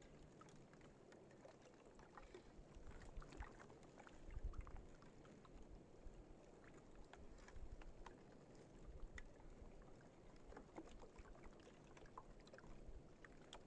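Near silence: faint room noise with scattered small clicks and a low rumble.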